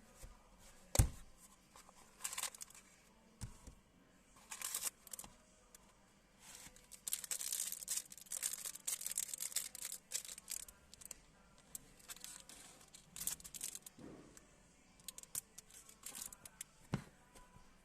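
Sunglasses packaging being handled: a sharp knock about a second in, then stretches of rustling and crinkling with scattered clicks.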